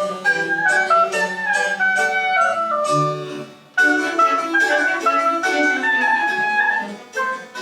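French Baroque chamber music: a flute plays a stepping melody over plucked-string accompaniment, with a brief pause about three and a half seconds in before the phrase starts again.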